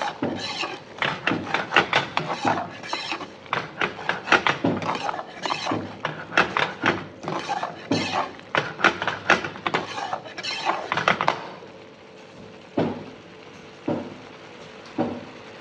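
A metal ladle stirring a thick prawn masala curry in a large metal pan, scraping and knocking against the pan several times a second. The stirring stops about eleven seconds in, leaving a few single knocks.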